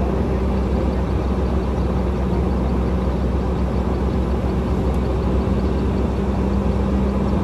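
Hydraulic excavator's diesel engine running steadily, a constant drone with a low hum.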